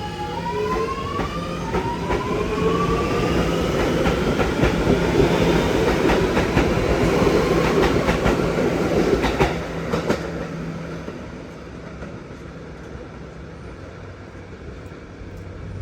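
Kawasaki R211S subway-type electric train pulling away, its traction motors whining in steps that climb in pitch as it accelerates. Wheels clack sharply a couple of times about ten seconds in, then the running noise fades as the train moves off.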